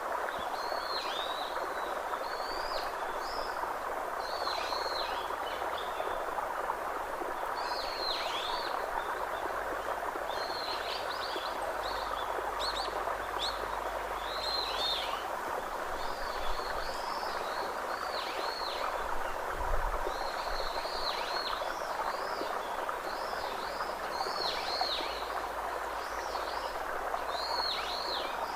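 Small birds chirping, short high hooked calls repeated every second or two, over a steady rushing background noise.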